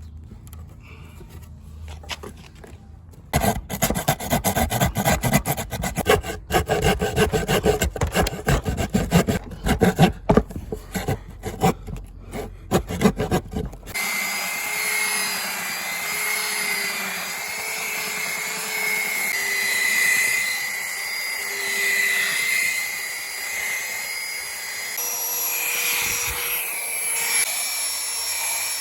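Hand sawing of wood, a quick run of uneven rasping strokes, which stops about halfway through. A steady motor with a whine of several held tones then takes over, its pitch shifting slightly a few seconds before the end.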